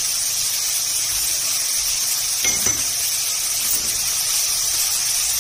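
Chopped onions sizzling steadily in hot oil in an aluminium kadai, sautéing with whole spices. A couple of light clinks come about halfway through.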